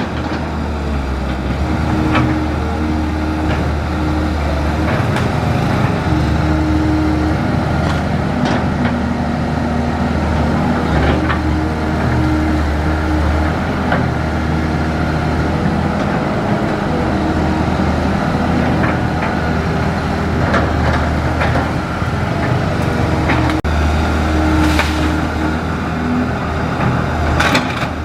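Cat 320C excavator's diesel engine running steadily while the machine works, its pitch and load shifting from moment to moment. Scattered short sharp cracks or knocks sound over the engine, the clearest near the end.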